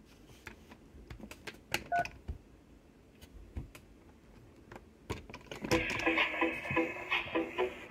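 Faint clicks as the top buttons of a Ruko Tia toy robot are pressed, with a short electronic beep about two seconds in. From a little past halfway the robot's speaker plays a bleeping electronic tune of short stepped notes.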